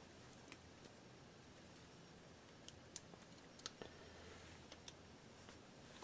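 Near silence: room tone with a few faint, scattered clicks of small tools and wire being handled.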